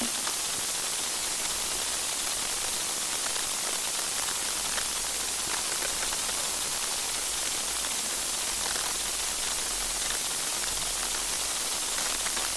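Steady hiss of recording noise from the microphone, with a faint low hum underneath and a few faint ticks.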